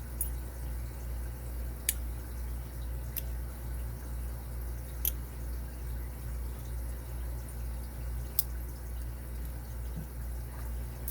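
About four sharp, isolated metal clicks spaced a few seconds apart as tools work at a stiff spring-steel retaining clip on a padlock cylinder, over a steady low hum.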